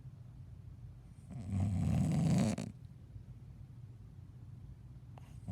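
A sleeping person snoring: one low snore starts about a second in and lasts well over a second.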